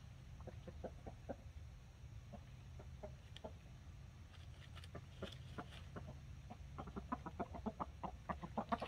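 Buff Orpington chickens clucking in short, scattered calls, breaking into a quicker, louder run of clucks over the last couple of seconds.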